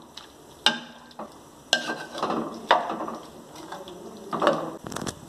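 A cooking spoon stirring yogurt-coated chicken pieces in a metal kadai. It knocks sharply against the pan about five times, with scraping between the knocks.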